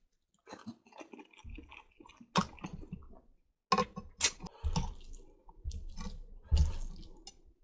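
Close-miked chewing and slurping of spaghetti and meatballs in red sauce: irregular wet smacks and squishes, with the sharpest smacks about two and a half, four and six and a half seconds in, and a short pause in the middle.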